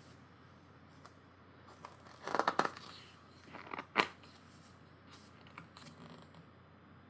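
Glossy pages of a thick photobook being turned by hand: a paper rustle about two seconds in, a sharp flap of a page about four seconds in, and a few light handling clicks.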